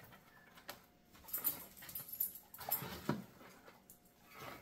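A pet dog giving a few short sounds while popcorn rustles as it is scooped out of a popcorn machine's cabinet into a paper bag.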